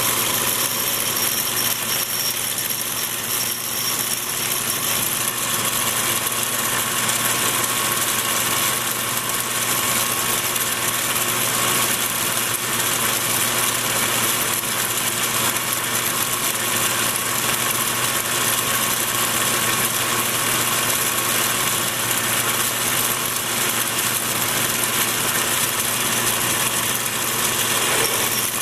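Atlas 618 bench lathe running steadily, its chuck spinning a small metal rod while the tool takes a light turning cut to bring it down to size.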